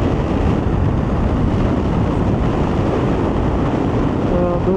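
Strong wind rushing over the microphone of a moving motorcycle, a steady dense noise with the bike's engine and road noise underneath.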